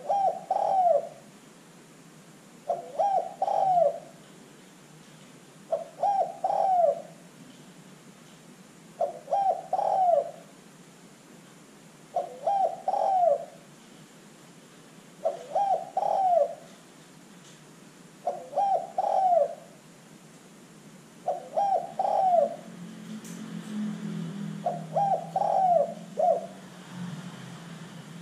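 Spotted dove (tekukur) cooing: a short phrase of a few notes, the last held longest, repeated about every three seconds, nine times over.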